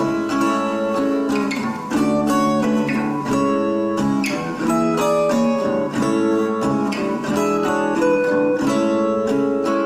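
Acoustic guitar played by plucking: an instrumental passage of separate picked notes, without singing.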